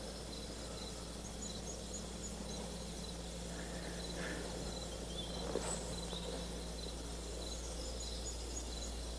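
Crickets chirping in an even rhythm over a steady low hum and background hiss.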